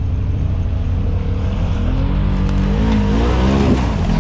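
Side-by-side UTV engine revving as the machine pulls through mud and climbs out of a water hole, its pitch rising and dipping repeatedly from about halfway in, with a rising hiss of tyres churning mud.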